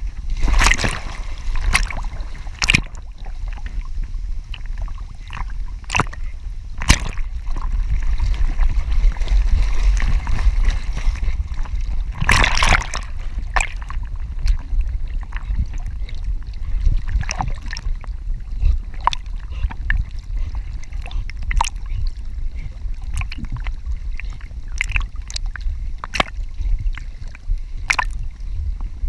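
Lake water sloshing and splashing around a swimming Dutch Shepherd, heard from a camera on its back: a steady low rumble with sharp splashes every few seconds and a longer splash about twelve seconds in.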